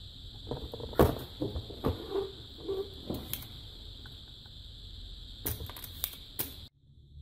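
Knocks and clicks of soldering tools being handled against a circuit board on a workbench, a desoldering pump and soldering iron, with the loudest knock about a second in and three sharp clicks near the end, over a steady high hiss and low hum. All sound cuts off suddenly just before the end.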